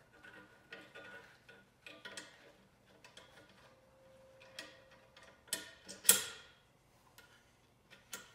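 Scattered light clicks and taps of metal parts being handled: the wastegate flapper and lever on a BMW N54 turbocharger being fitted and held in place by gloved hands, with a sharp knock about six seconds in, the loudest sound.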